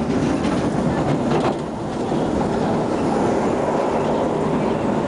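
SMRT C151 train running at speed, heard from inside the carriage: a steady rumble of wheels on rail, with a few faint clicks in the first second and a half.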